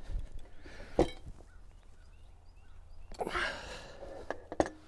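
A ratchet wrench working on a hydraulic top link's hose fitting as it is tightened down to crush the copper washers: a sharp metallic click about a second in, a short rushing noise near three seconds, then two more clicks near the end.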